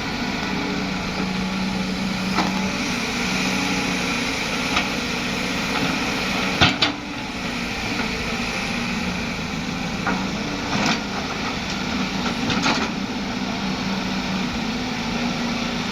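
Heavy-equipment diesel engine running steadily with a low hum, with a few sharp knocks on top, the loudest a double knock about seven seconds in.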